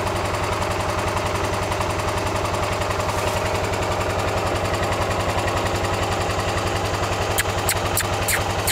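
An engine idling steadily, a low, even pulsing hum. Near the end come a few short, sharp high clicks.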